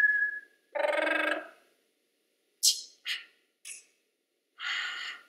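Human voices producing isolated vocal sounds of a letter piece: a whistled tone that stops about half a second in, a short sung vowel, three quick hissed consonants, then a longer breathy hiss near the end.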